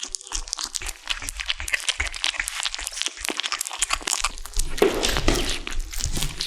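Kittens chewing and crunching on a large chicken drumstick: a dense, irregular run of wet crunches and clicks. It grows louder for about a second and a half near the end.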